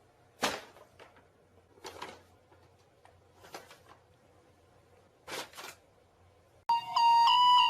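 A few scattered light knocks or taps in a quiet room. About a second before the end, music with a melody of held, stepping notes comes in loudly.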